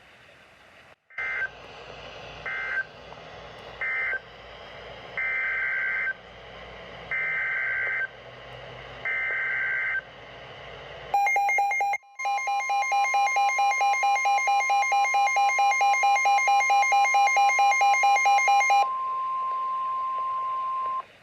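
NOAA Weather Radio SAME alert data: three short warbling data bursts about a second apart, then three longer ones. These are the end-of-message code of one warning and the header of a new tornado warning. They are followed by the steady 1050 Hz warning alarm tone, with a rapid pulsing alarm beep over its first seven seconds or so.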